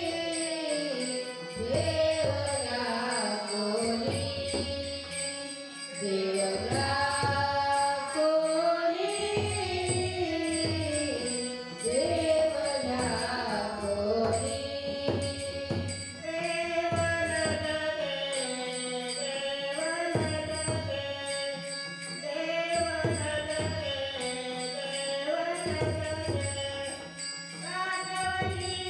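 A woman singing a Marathi abhang, a devotional bhajan, with a women's bhajan group. A hand drum and small hand cymbals keep a steady beat beneath her.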